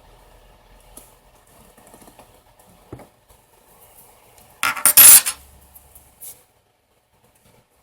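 Bench handling noise: a loud, brief clatter of small hard objects on a work surface about five seconds in, after faint handling and a light click.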